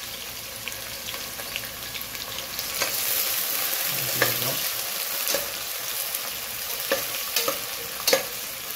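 Sliced onions sizzling in hot oil in a steel pot, the hiss growing louder about three seconds in as they are stirred. A metal spoon scrapes and knocks against the pot several times in the second half.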